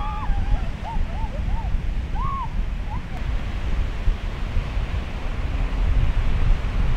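Ocean surf and wind buffeting the microphone, a steady rumble. A few short rising-and-falling tones come in the first three seconds.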